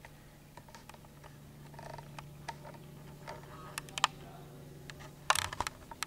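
Scattered small clicks and taps over a low steady hum, with a louder cluster of sharp knocks about five seconds in, as the hum stops.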